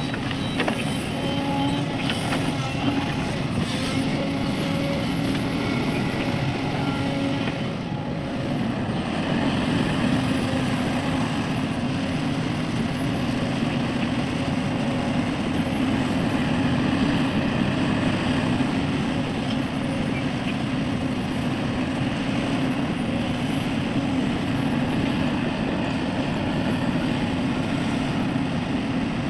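A steady engine drone that runs on unbroken, with a constant low hum.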